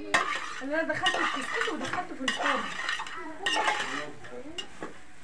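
Metal spoon stirring and scraping in a large aluminium cooking pot, with several sharp clinks about a second apart as it knocks the pot's side.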